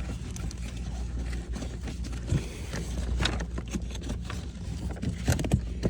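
Scrapes and sharp clicks of a cabin air filter being pushed and worked into its plastic housing, with the loudest knocks near the end, over a steady low hum.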